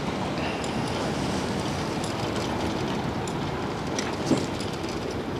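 Steady rolling rumble of a bicycle riding over a brick-paved path, with a small knock about four seconds in.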